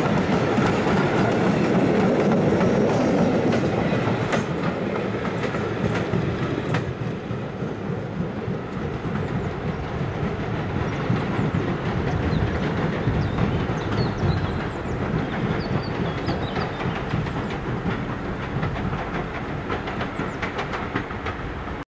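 Steam-hauled train of vintage passenger coaches running past, its wheels clattering over the rail joints. It grows fainter as it draws away, and the sound cuts off suddenly near the end.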